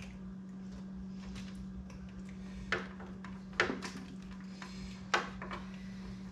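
Three sharp clicks and snaps from a table saw's power switch as its wire connectors are worked off with needle-nose pliers, over a steady low hum.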